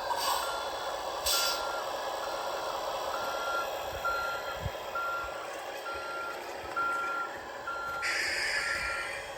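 Reversing beeper on an RC construction model's sound module, sounding an even beep about once a second over the steady hum of the model's running gear, with a short hiss about eight seconds in.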